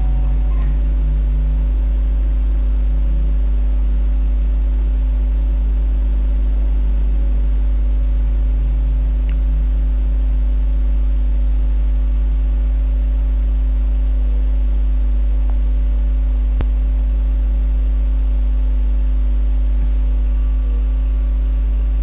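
A loud, deep, steady electrical hum at about 50 Hz with a few fainter higher overtones, unchanging throughout: mains hum in the recording chain.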